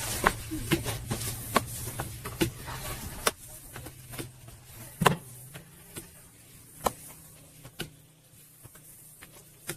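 A long, thin wooden rolling pin working dough into a thin flatbread sheet on a round floured board, with irregular sharp taps and knocks as the pin strikes the board. The loudest knock comes about five seconds in.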